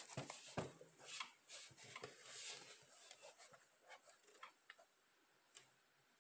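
Faint handling noise of a sneaker being turned in the hands: a cluster of light taps and rustles over the first few seconds, thinning to a few scattered ticks.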